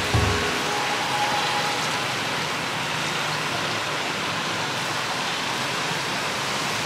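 A steady, even rushing noise with no tones in it, and a short low thump just after the start.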